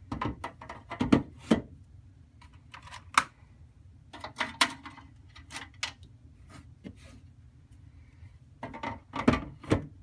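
12 V sealed lead-acid batteries being set into a metal battery tray: irregular knocks, clunks and scrapes of the plastic battery cases against the tray. They come in clusters, loudest about a second in and again near the end.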